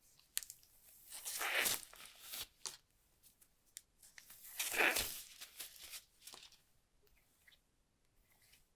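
Packaging being torn by hand in two long rips, with small clicks and crinkles between them.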